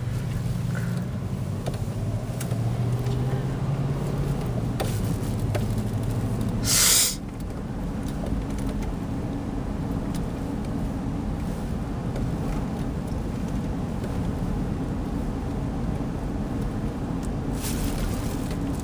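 SUV running at low speed, its engine hum and road noise heard from inside the cabin. About seven seconds in a brief, loud burst of hiss-like noise cuts across it, and the low engine hum shifts higher; a fainter burst comes near the end.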